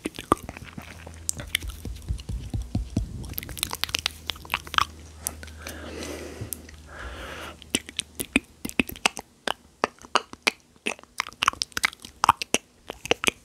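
Close-miked ASMR mouth sounds: wet tongue and lip clicks and smacks in quick, irregular succession, with a breathy stretch of a second or two around the middle.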